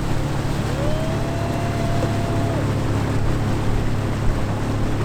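Outboard motor running at full throttle, pushing a heavily loaded boat up on plane, with a steady drone. A faint higher tone rises and holds briefly about a second in.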